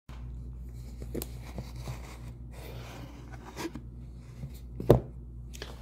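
Cardboard packaging being handled: a white card outer sleeve rubbing and sliding off an earphone box, with scattered light taps and one sharp knock near the end.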